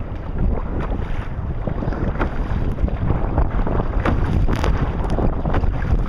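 Strong wind buffeting the microphone over choppy water, with irregular splashes of waves slapping against the kayak's hull.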